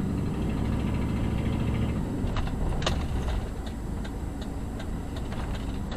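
Engine and road rumble heard from inside a car's cabin, easing a little past the middle as the car slows. Over it comes the turn signal's steady ticking, signalling a right turn.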